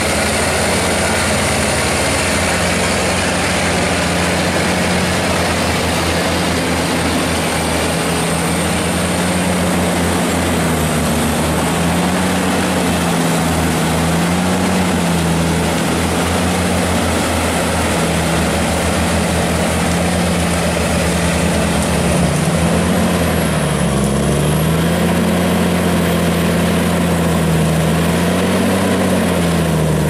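Large four-wheel-drive tractor diesel engines working under heavy load in deep mud. First a Rába-Steiger runs alongside a Claas Xerion 3800, then the Xerion pulls a reversible plough. A steady, loud engine drone whose pitch wavers up and down through the second half as the load changes.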